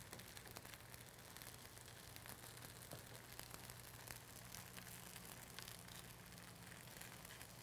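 Near silence: a faint steady electrical hum and hiss of room tone, with a few faint light ticks.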